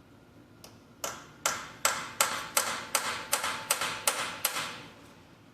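A hammer striking metal about ten times in a steady rhythm, a little under three blows a second, each blow ringing briefly, while a broken bolt stuck in an engine block is worked on.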